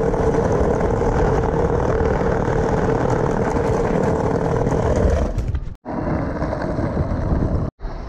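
Small hard wheels rolling fast over a paving-stone sidewalk: a loud, continuous rumbling rattle. It breaks off abruptly about six seconds in and again near the end.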